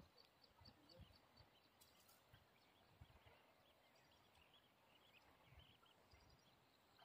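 Near silence: quiet outdoor ambience with many faint, short high chirps repeating throughout, and a few soft low thumps.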